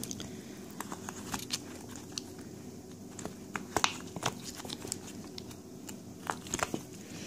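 Pink silicone mould being flexed and bent by hand as hard resin pieces are popped out of it and handled: scattered small irregular clicks and crinkles over a faint steady hum.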